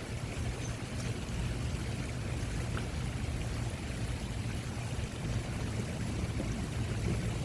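Steady rush of moving water with a low rumble and no distinct events.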